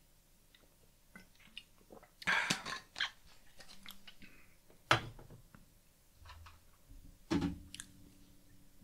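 A man gulping and swallowing from a drinks bottle, with breaths and small mouth noises, and a single sharp knock about five seconds in.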